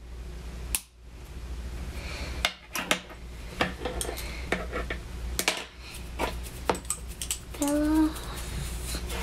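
Plastic LEGO bricks clicking and clattering as hands fit them together and set them down on a wooden table, a string of sharp clicks. A short hummed tone sounds near the end.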